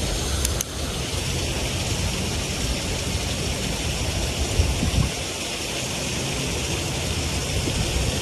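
Steady rushing noise of water flowing over a small creek spillway, with a low rumble underneath and a couple of faint clicks about half a second in.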